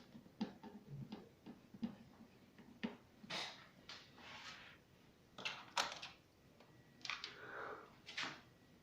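Irregular clicks, knocks and short scraping sounds of objects being handled, a few of them sharp and loud.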